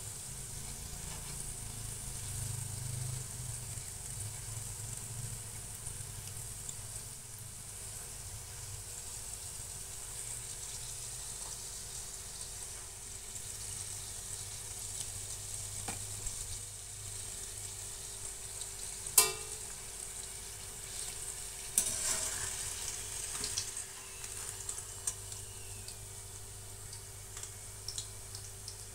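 Pempek ada'an balls deep-frying in hot oil in a wok, a steady sizzle. One sharp knock comes about two-thirds through, followed by a few lighter knocks.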